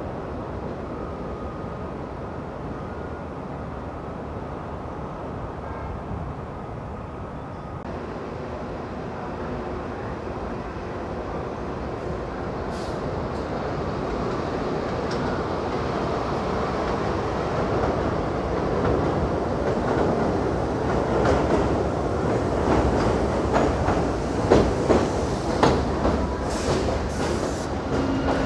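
New York City subway train running on the track, its sound growing steadily louder over the second half as it nears. From about two-thirds of the way in, the wheels click over rail joints.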